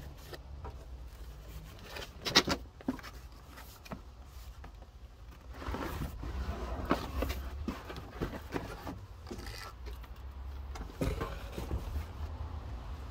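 Cardboard box being opened by hand: flaps pulled back and the cardboard rustling and scraping, with a sharp knock about two and a half seconds in, as a new radiator is lifted out of it. A steady low rumble runs underneath.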